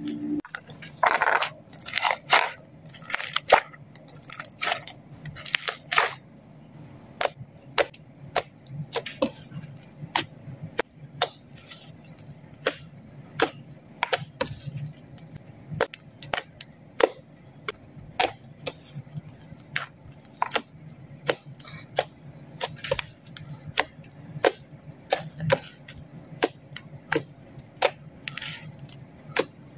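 Slime being pressed, squeezed and stretched by hand, giving irregular sharp clicks and pops, several a second, in an uneven run.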